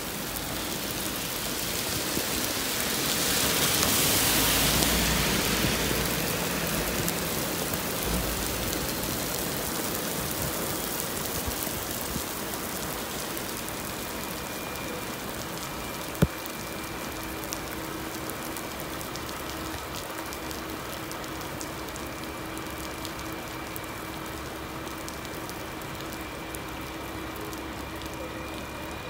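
Steady rain falling on wet pavement and streets, with a swell of tyre hiss about four seconds in as a vehicle passes on the wet road. A single sharp click about sixteen seconds in.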